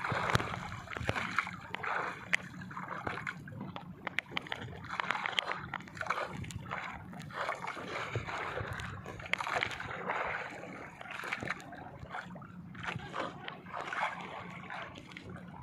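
Sea water sloshing and splashing against the hull of a small outrigger boat, with scattered sharp clicks and knocks.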